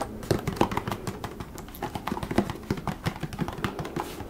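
Fingertips and nails tapping and clicking on a Vita Coco coconut water carton and its plastic screw cap, a rapid, irregular run of small taps.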